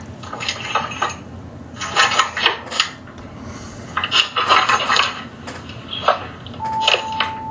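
Metallic jingling and rattling in about four short clusters, as someone works at a front door trying to get in. A steady high tone comes in near the end.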